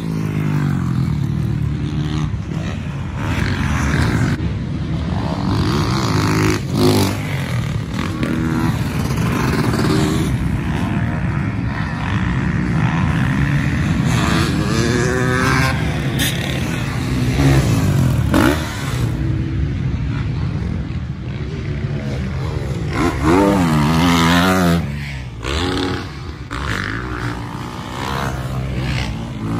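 Several motocross dirt bike engines running on the track, revving up and falling off again as the bikes ride the course, with their sounds overlapping.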